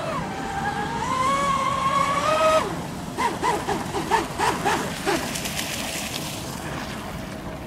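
RC speedboat's motor running at high speed with a steady whine that rises slightly in pitch, cutting off about two and a half seconds in. Then comes a string of short whine blips, about four a second, and after them a faint steady whine.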